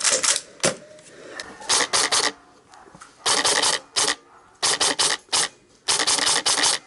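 Short scraping, rustling noises in quick clusters of two to four, with brief pauses between them.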